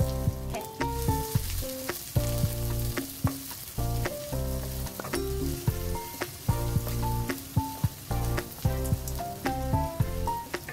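Sliced red onion sizzling in hot oil in a non-stick wok, stirred with a wooden spatula that knocks now and then against the pan, under background music with a light, rhythmic melody.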